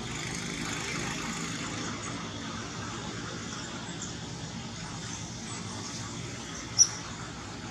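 Steady outdoor background noise: a low rumble under an even hiss, with one brief, sharp, high-pitched chirp about seven seconds in.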